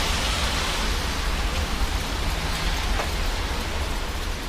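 Rain falling steadily, over a constant deep rumble.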